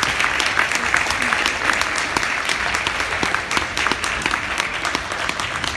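An audience applauding: many people clapping steadily, with single sharp claps standing out from the crowd.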